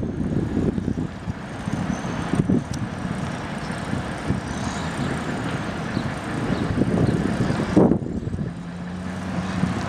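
Heavy vehicle engine running with a low rumble, changing abruptly about two and a half and eight seconds in; a steady engine hum comes through near the end.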